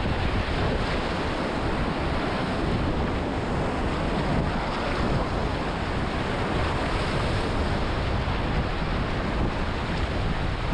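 Whitewater rapids rushing and churning around a kayak, a steady roar heard close up, with wind buffeting the microphone.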